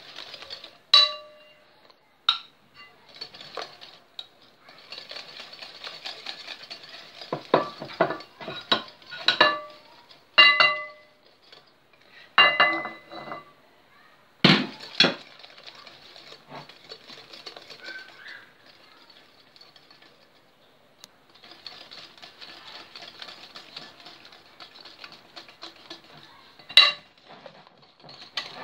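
Wire whisk stirring thick chocolate batter in a ceramic dish: steady whisking and scraping, broken by sharp ringing clinks of metal against the dish, the loudest near the end.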